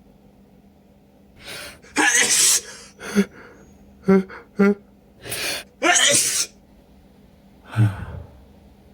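A person sneezing hard: two loud, wet sneezes, each after a gasping in-breath, with short catching breaths in between and a last short burst of breath near the end.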